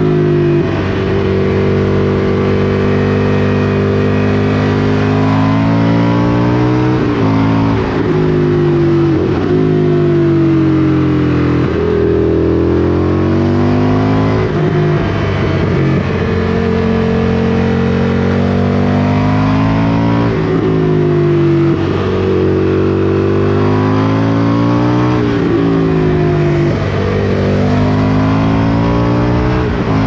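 Indian FTR1200's V-twin engine running under way. Its pitch climbs and then drops repeatedly as the motorcycle accelerates, shifts gear and slows.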